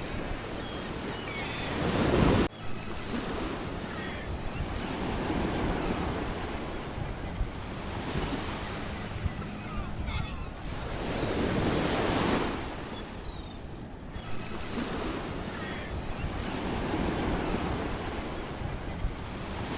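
Sea surf breaking and washing in repeated swells, each wave rising and falling away; the loudest comes about two seconds in and cuts off suddenly.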